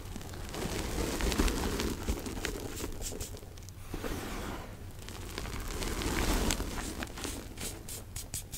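Hands crumbling and pressing reformed gym chalk tinted gray with charcoal into loose chalk powder: soft crunching and powdery rustling that swells twice, then quick small crackles near the end.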